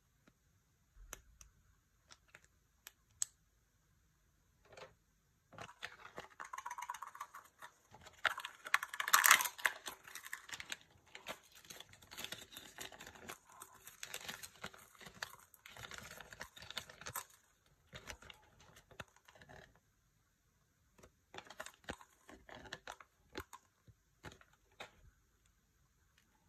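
Small plastic toy parts clicking as they are handled, then a Kinder Joy toy's wrapper crinkling and tearing open for about twelve seconds, loudest about nine seconds in, then more scattered plastic clicks as the toy's pieces are fitted together.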